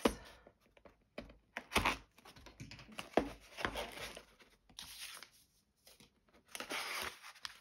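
Tape being torn off a small cardboard box and the box being opened by hand, cardboard scraping and rustling in several separate bursts, the longest near the end.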